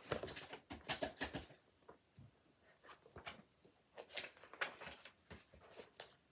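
Pages of a picture book being flipped and handled, with a quick run of rustling page turns in the first second and a half, then scattered single page flicks and paper rustles.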